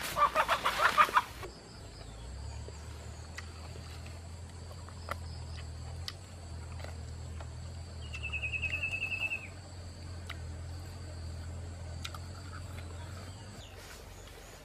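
A wild chicken squawking and clucking in alarm while it is chased through dry brush, loud and rapid, cut off abruptly about a second and a half in. Then quiet outdoor ambience with a low steady hum and scattered faint ticks, and a short, rapid, high trill around the middle.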